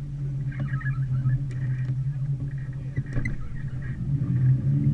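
Small river boat's motor running steadily at low speed, an even low hum. A few faint high chirps sound over it early on and again about three seconds in.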